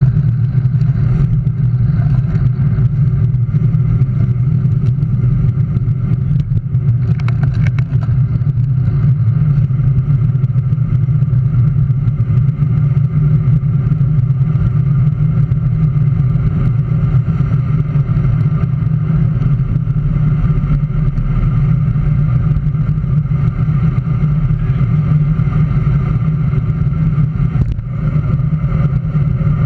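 Steady low rumble of wind and road noise on a handlebar-mounted camera on a road bicycle riding along at speed, with a brief dip near the end.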